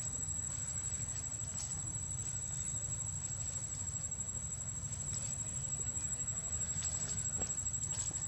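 Steady outdoor background: a low rumble and a thin, steady high whine, with a few faint clicks and rustles scattered through.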